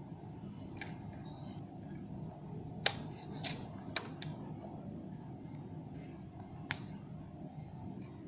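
A few sharp plastic clicks and handling noises from a DSLR camera and its battery being handled, the loudest about three seconds in, over a steady low hum.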